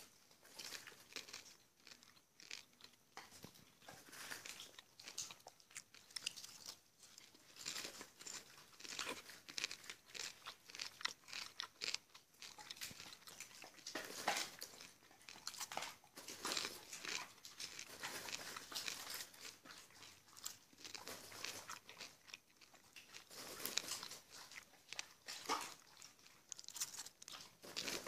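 Popcorn being chewed: irregular crisp crunches and bites, coming in quick clusters.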